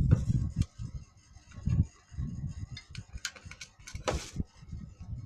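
Scattered knocks, clicks and low rustling of things being handled, with no motor running.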